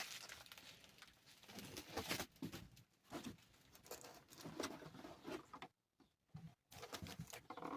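Faint rustling and soft knocks of packaging being handled as an item is lifted out of a parcel, in short scattered bursts.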